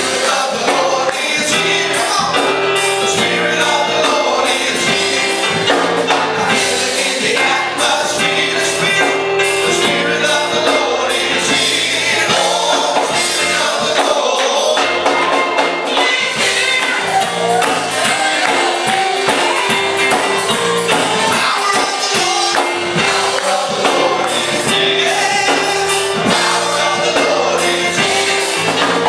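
Gospel music with singing voices and percussion, tambourine among it.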